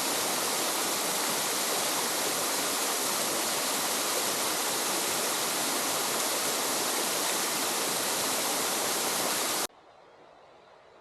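Waterfall rushing, a steady full roar of falling water that cuts off suddenly near the end, leaving only a faint hiss.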